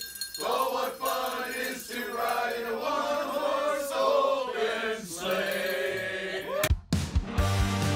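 A group of mostly male voices singing together without accompaniment. About seven seconds in, it cuts to an instrumental music track with a steady beat.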